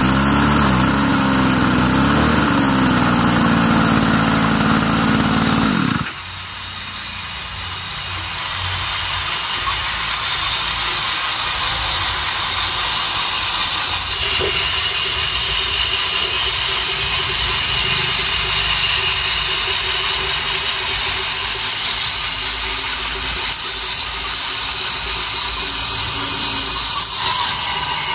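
Hydraulic pump drive of a homemade 1/8-scale RC Cat 390F excavator running under load, a mechanical whine whose pitch rises and falls as the boom and bucket work. About six seconds in it drops abruptly to a quieter, steadier whine.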